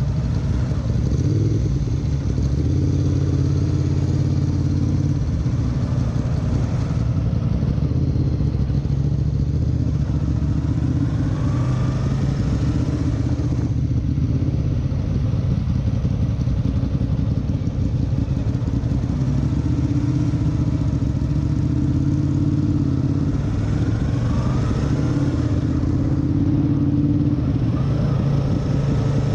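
Yamaha motorcycle engine running in slow stop-and-go riding, heard from the rider's seat, rising briefly in pitch as it speeds up, about 11 seconds in and again about 24 seconds in.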